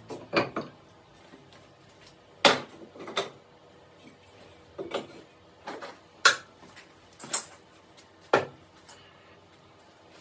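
A series of short, sharp knocks and clatters, about eight spread over several seconds, of tools and objects being handled on a workshop bench.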